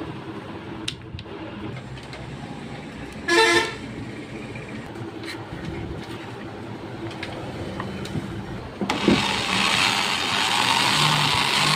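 A vehicle horn toots once, briefly, about three seconds in, over a low background hum. About nine seconds in an electric hand drill starts up and runs with a loud, steady whirr.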